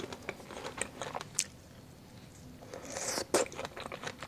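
Close-miked mouth sounds of a person chewing a fresh strawberry: a run of small clicks and smacks, the loudest a little past three seconds in.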